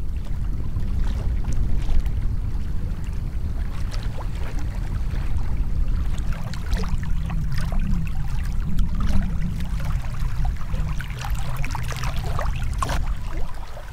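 Small waves lapping and splashing against a rocky lakeshore in an irregular patter, with wind rumbling on the microphone.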